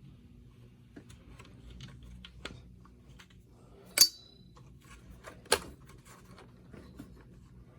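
Screwdriver and Kirby G4 vacuum parts being handled during disassembly: small scattered clicks and clinks, with two sharp metallic clacks about four and five and a half seconds in, the first ringing briefly. A faint steady low hum runs underneath.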